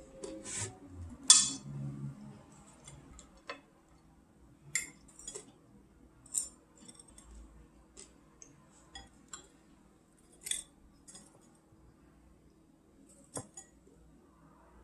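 Scattered light clinks and taps of kitchen utensils against dishes, about a dozen separate strikes with the loudest about a second in, over a faint steady hum.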